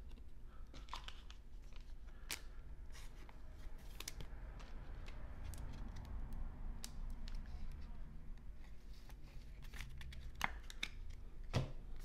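Baseball trading cards handled and flipped through by hand, with a card in a clear plastic sleeve: light rustling and scattered sharp clicks of card stock and plastic, and a louder knock near the end.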